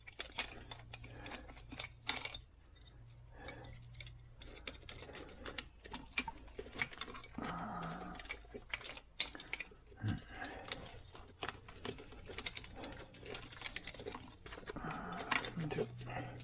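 Irregular light clicks, taps and rattles of small parts and hand tools being handled, with no steady rhythm.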